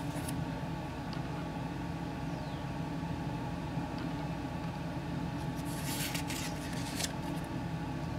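Paper booklet pages being turned, a brief rustle of paper about six seconds in, over a steady low hum.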